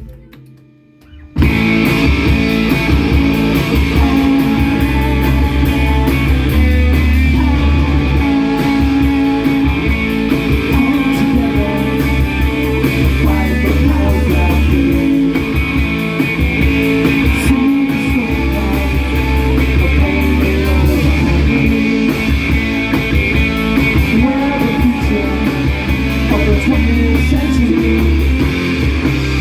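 Live rock band playing an instrumental passage: guitars, bass and drum kit. The sound drops out almost completely for about a second at the start, then comes back at full volume.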